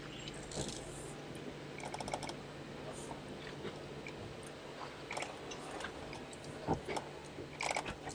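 Jeep Wrangler moving slowly on a rocky off-road trail: a steady low engine hum with scattered, irregular clicks, crunches and creaks.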